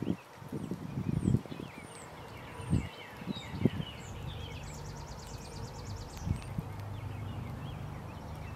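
Songbirds chirping, with short high calls throughout and a fast trill in the middle, over a few soft low knocks in the first half.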